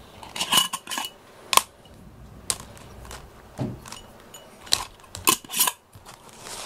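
Irregular light clicks and clinks of a small hard object being handled, about a dozen sharp strikes, several with a brief ringing note, the loudest about a second and a half in.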